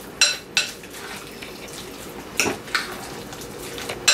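Short sharp clinks against a ceramic bowl as guacamole is mixed by hand: two quick pairs, then one more near the end.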